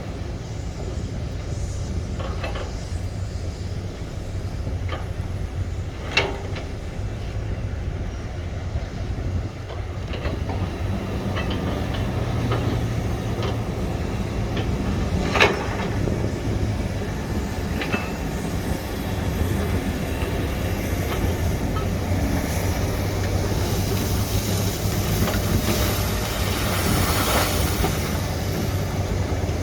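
SANY excavator working: its diesel engine rumbles steadily, with a few sharp metallic clanks from the bucket and arm, and a hiss builds in the second half.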